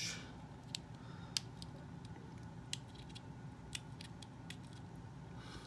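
Scattered light clicks and taps of small plastic doll pieces being handled.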